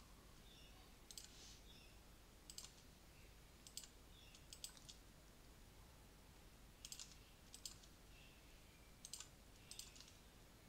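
Faint, irregular clicks of a computer's pointer button, about ten of them, some in quick pairs, over near-silent room hiss.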